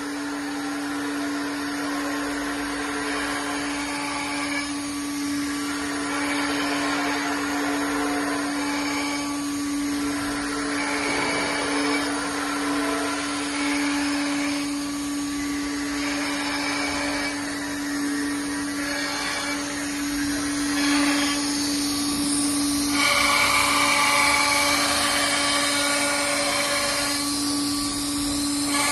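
AKM2030C CNC router running: a steady spindle hum under a noisier machining sound that rises and falls every few seconds and grows louder about two-thirds of the way through.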